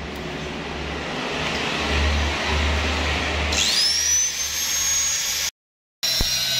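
Angle grinder spinning up about three and a half seconds in, a high whine that climbs quickly and then holds steady at full speed, over a hiss that builds through the first part. It cuts off for a moment and then runs on at a steady high whine.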